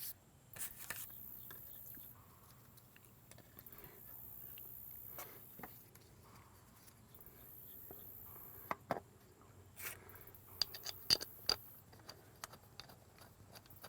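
Faint handling noise of small outboard engine parts being fitted by hand: scattered light clicks and scrapes, with a quick run of sharper clicks about ten to eleven seconds in.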